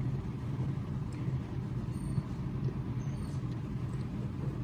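A steady low background hum, with a couple of faint light clicks about two and three seconds in.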